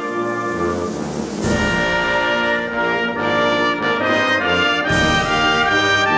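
Brass music led by trumpets, with a crash about a second and a half in and another near five seconds.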